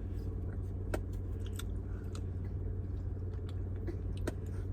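A person chewing and biting food, barbecue ribs, with a few short sharp mouth clicks. Underneath is a steady low hum from the car's running engine.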